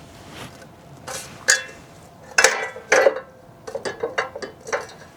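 Metal clinks and knocks from the photo booth's painted metal pillar and base plate while the two screws joining them are tightened by hand. Several sharp clinks with a short metallic ring come in the middle, followed by a run of lighter clicks.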